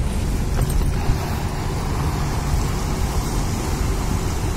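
A harbour tugboat's engines and propeller wash running close by as it manoeuvres: a steady low rumble.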